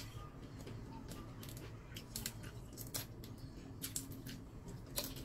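Cooked whole shrimp being peeled by hand: the shell and legs crackle and snap in a scattered series of short, sharp clicks.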